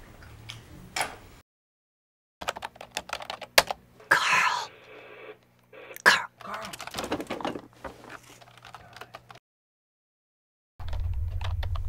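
Typing on a computer keyboard: irregular key clicks, with a brief louder pitched sound about four seconds in. The sound drops out completely for about a second twice, at cuts between scenes.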